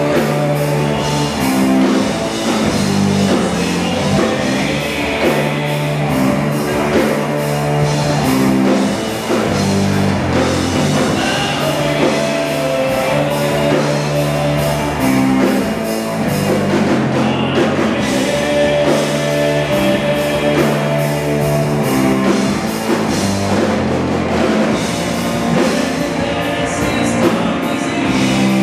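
A rock band playing live at a steady loud level: electric guitar and bass over a drum kit, working through a riff of long held low notes that change every second or two.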